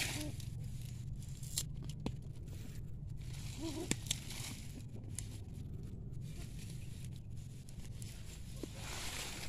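A hand crumbling and tearing apart a clump of moist soil and roots around arrowroot tubers: soft crumbling and tearing with a few sharp little snaps and clicks, over a steady low rumble.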